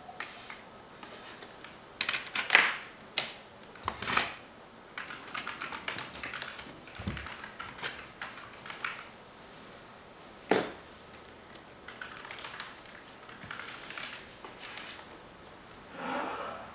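Two people typing on computer keyboards: irregular runs of keystrokes with a few louder clatters among them.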